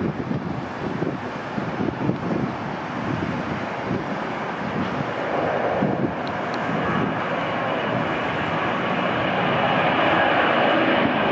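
Boeing 757-200 freighter's twin turbofan jet engines at takeoff thrust as it rolls down the runway, rotates and lifts off. The jet noise grows steadily louder, with a harsher, higher rasp building from about halfway through.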